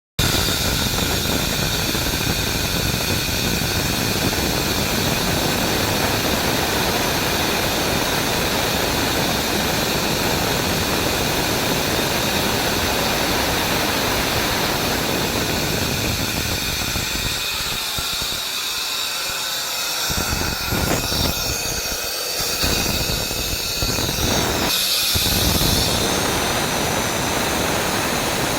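Atlas Copco GA 18 kW VSD rotary screw air compressor running: a steady rush of machine and air noise with several high whining tones. The lower rumble briefly drops away a few times past the middle.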